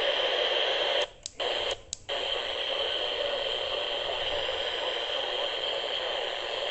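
Steady radio static hiss from a weather radio receiver, with no voice on the channel. It drops out briefly twice, about one and two seconds in.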